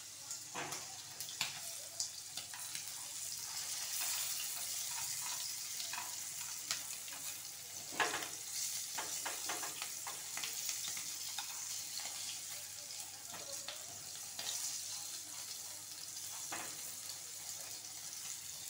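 Small sun-dried salted fish frying in oil in a non-stick pan: a steady high sizzle, with scattered short clicks and scrapes as chopsticks turn the fish against the pan.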